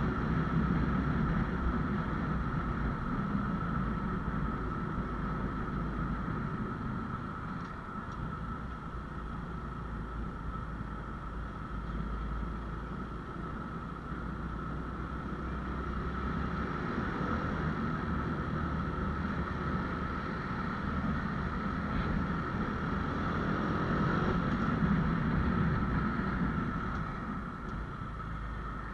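Honda Wave 125X's single-cylinder four-stroke engine running steadily under way, with wind and road noise. The engine drone swells and eases slightly but never stops.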